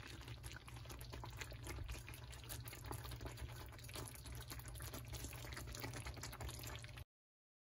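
Cream sauce simmering in a skillet: a fine, steady crackle of small bubbles popping over a low hum, cutting off suddenly near the end.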